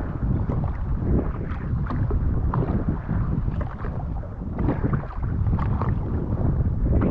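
Water splashing and slapping against a Sea-Doo Fish Pro jet ski on the sea, in quick irregular splashes over a steady low rumble, with wind buffeting the microphone.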